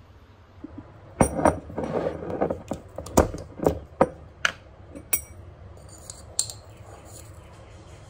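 Small hard objects being handled: a quick run of sharp clicks and clinks starting about a second in, about a dozen over four seconds, then one more a little later.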